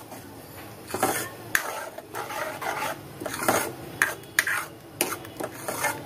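Steel ladle stirring a thick spinach-and-mustard-greens puree in a metal kadhai, with repeated irregular scrapes and clinks of metal on the pan about every half second.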